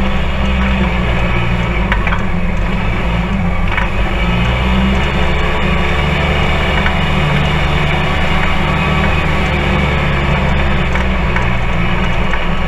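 Polaris RZR 4 side-by-side driving along a rough dirt trail, heard from inside the open cab: a steady, loud engine and drivetrain drone with road noise and light rattling of the body.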